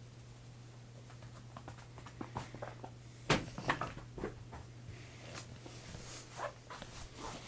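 A cat playing: scattered light taps, scratches and rustling, with one sharper knock about three seconds in, over a steady low hum.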